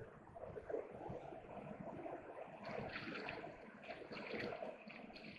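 Water of a small river flowing, with louder, uneven splashing noise from about three seconds in.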